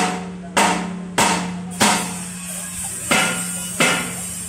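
Six sharp ringing knocks like hammer blows, about every half second with a pause midway, over a steady low hum.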